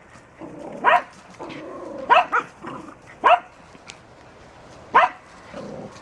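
A dog barking in play, four sharp barks spread over a few seconds, with quieter lower sounds between them.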